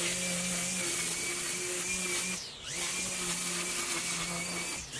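Makita XRU11M1 18V brushless cordless string trimmer running, its motor and spinning line giving a steady high whine. About halfway through the whine briefly drops in pitch and loudness, then climbs back up as the motor spins up again, and it dips once more near the end.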